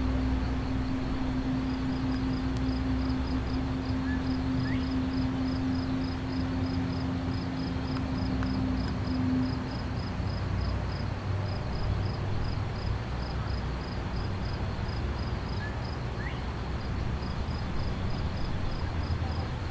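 An insect, likely a cricket, chirping at a high pitch in an even rhythm of about four chirps a second, over a steady outdoor rush. A low steady hum runs underneath and stops about nine and a half seconds in.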